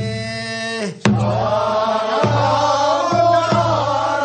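Men singing a traditional Korean rice-paddy weeding song for the second weeding. One voice holds a note for about the first second. Then, after a sharp stroke, a group of voices takes up the song over beats of a barrel drum (buk).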